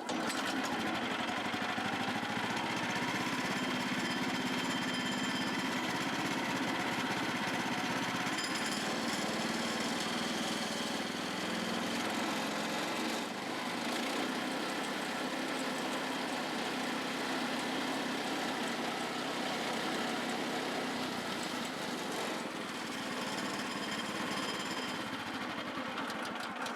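Woodland Mills HM122 band sawmill's 9.5-horsepower gas engine running steadily and spinning the freshly fitted band blade, a test run to check that the blade tracks and stays on its wheels. There is a brief dip in the sound about thirteen seconds in.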